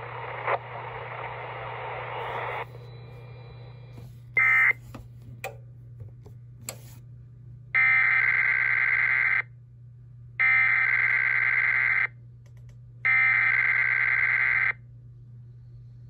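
An Emergency Alert System encoder sends its SAME digital header for a Required Weekly Test three times, as identical harsh data tones each about one and a half seconds long, about a second apart. Before them, radio hiss cuts off, followed by a short beep and a few clicks. A steady low hum runs underneath.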